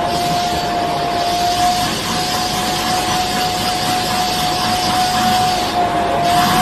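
A machine running steadily: a loud, even rushing noise with one constant whine held at the same pitch throughout.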